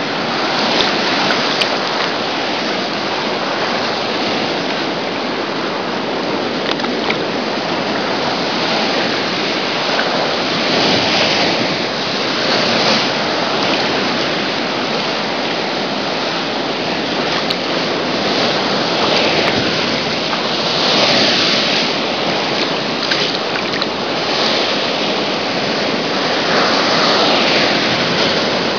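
Choppy ocean waves sloshing and washing, a steady rush of water that swells louder every few seconds.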